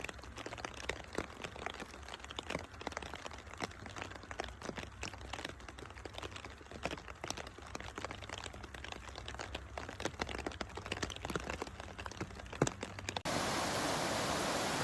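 Raindrops pattering on a surface as a dense run of irregular sharp taps over a low rumble. About 13 seconds in, it cuts abruptly to a louder, steady, even rushing hiss of heavy rain or water.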